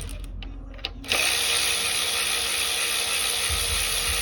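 A few light tool clicks, then a power ratchet starts about a second in and runs steadily, spinning out the coil-pack bolts on an LS4 V8.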